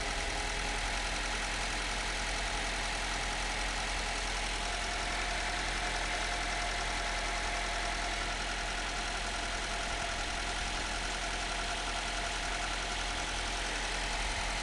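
Opel Corsa C's Z12XE 1.2-litre four-cylinder engine idling steadily with an even mechanical whirr and fine rattle.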